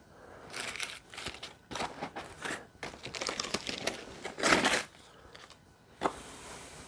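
Cardboard advent calendar door being pried open and its packaging crinkled and torn by hand, in irregular rustling bursts that are loudest about four and a half seconds in. A single sharp click follows near the end.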